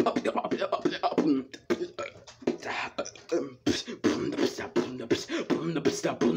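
Beatboxing: a fast run of mouth-made drum sounds, sharp clicks and pops, mixed with hummed notes.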